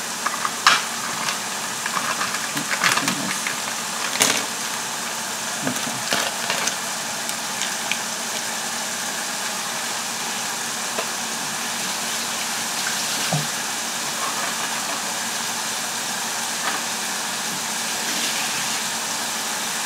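Mushroom and onion sauce sizzling steadily in a hot cast-iron skillet, with a few sharp clicks and knocks in the first several seconds.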